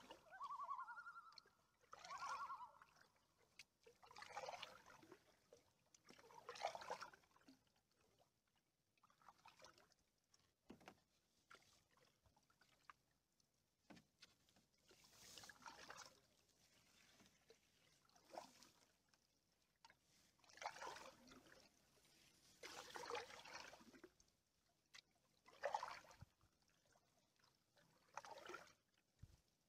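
Canoe paddle strokes in flat calm water: quiet swishes and drips, one about every two to three seconds.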